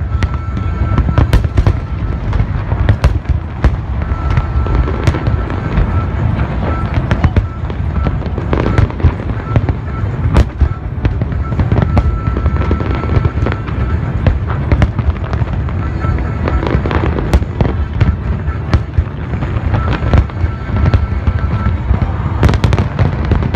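Large aerial fireworks display: a continuous rolling rumble of shell bursts, with many sharp bangs and crackles on top.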